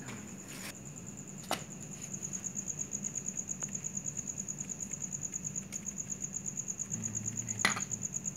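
Cricket chirping in a steady, high, rapidly pulsing trill over a faint low hum, with two sharp clicks: one about a second and a half in and a louder one near the end.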